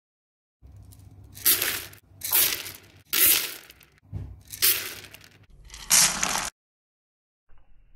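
Five loud, noisy impact sound effects about a second apart, each swelling and then fading, over a low rumble, laid on coffee beans crashing and scattering; the last one cuts off suddenly.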